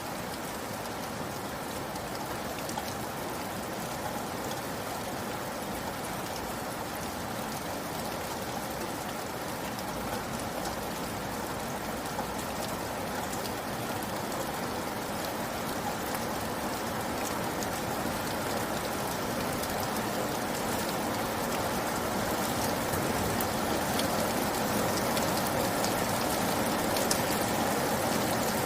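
Steady rain falling, an even hiss with many small drops ticking on a surface, growing a little louder toward the end.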